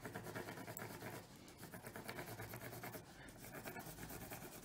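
Pencil scratching in quick, light back-and-forth shading strokes on paper laid over a textured tabletop, which rubs the table's texture into the shading.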